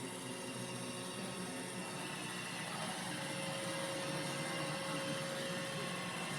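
iRobot Roomba j7+ robot vacuum running with a steady whir from its motors and brushes.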